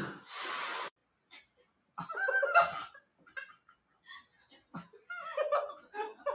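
People laughing and chuckling in short, broken bursts, starting about two seconds in and growing more frequent toward the end.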